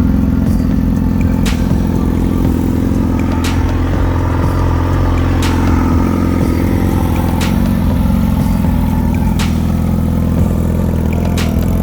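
A motorcycle's inline-four engine running steadily, with a sharp click about every two seconds.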